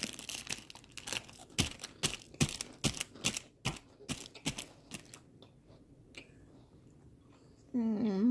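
Crunching of a cracker being bitten and chewed: a quick, irregular run of crisp crunches that stops about five seconds in. Near the end a voice hums a pitched "mmm".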